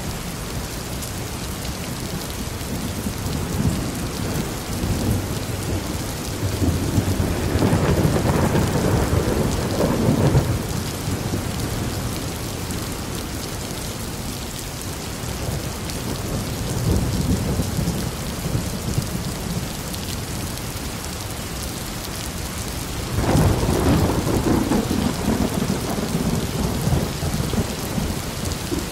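Thunderstorm: rain falling steadily as an even hiss, with thunder rumbling low several times. The strongest rumbles come about a quarter of the way in and near the end, the last starting suddenly; a weaker one falls in between.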